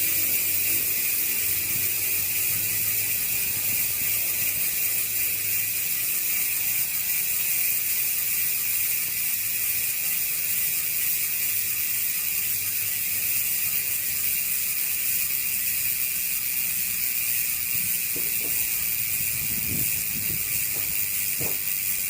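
Koozer XM490 six-pawl rear bicycle hub freewheeling fast, its pawls clicking so quickly that they merge into a steady buzz. There are a few faint knocks near the end.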